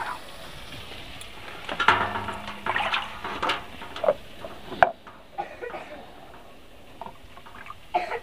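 Spiced onion-tomato masala frying in oil in a steel kadai, a soft steady sizzle. Several short, louder noises in the first half, ending in a sharp click about five seconds in.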